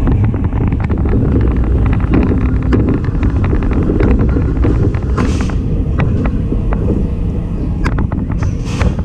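Zierer Force Two family roller coaster train rolling along its steel track, a steady low rumble full of quick clicks and clatter from the wheels, with wind on the microphone. Two short hisses come about five seconds in and again near the end.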